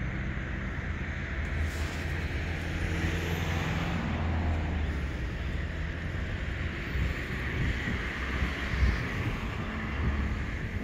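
Road traffic: a steady rumble of vehicle engines with tyre noise.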